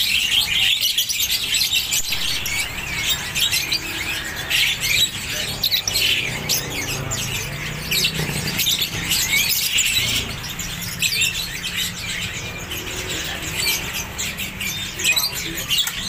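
Many small caged songbirds chirping and twittering at once: a dense, steady stream of quick high-pitched chirps.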